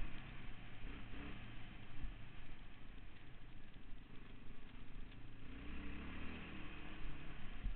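Yamaha Raptor 660 sport quad's single-cylinder four-stroke engine running as the quad is ridden along a dirt trail, revving up a little over halfway through.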